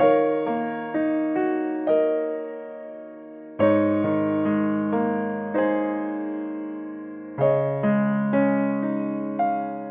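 Background piano music: slow chords struck every few seconds, with single melody notes between, each note fading after it is struck.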